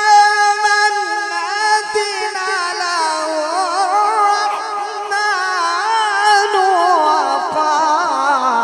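A male qari reciting the Quran in the melodic tajweed style into a microphone: a held note that, about a second in, breaks into wavering ornaments and slowly falls in pitch.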